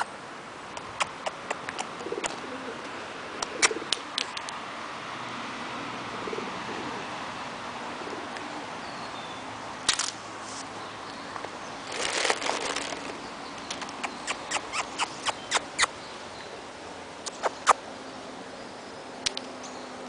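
Pigeons at a feeding spot: wings flapping in short bursts about ten and twelve seconds in, among many sharp taps and clicks, with soft cooing.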